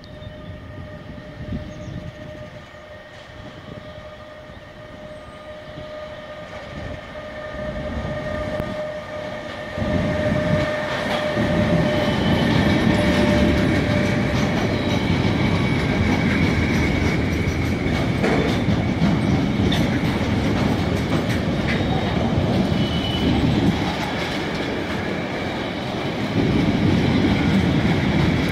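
Electric locomotive hauling an intermodal container freight train past at close range. A steady whine as the locomotive comes by gives way, about ten seconds in, to the loud rumble of container wagons rolling past, with clicking over the rail joints.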